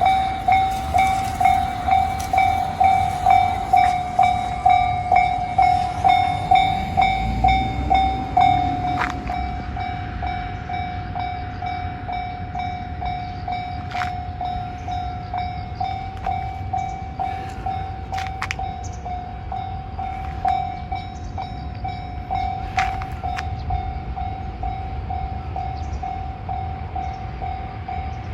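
Japanese railway level-crossing warning alarm (the JR standard electronic bell) ringing in a steady two-tone-per-second pattern, signalling an approaching train. It is louder for roughly the first nine seconds, then keeps ringing more quietly.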